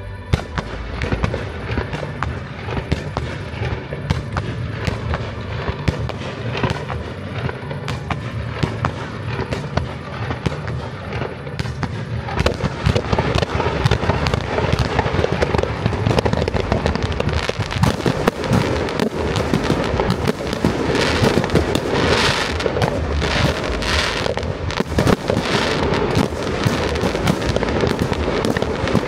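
Fireworks display: rapid crackling and popping from many fountains and shells going off together. It grows louder and denser about twelve seconds in.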